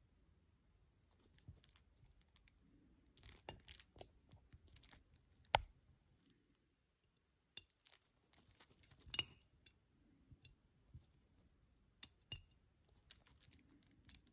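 Faint handling noises of small watchmaking hand tools on a watch movement, with scattered light clicks and two sharper clicks about five and a half and nine seconds in.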